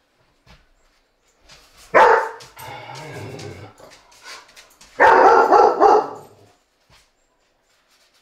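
A dog barking loudly twice, about two and five seconds in, the second call longer and drawn out, with quieter vocalising between them.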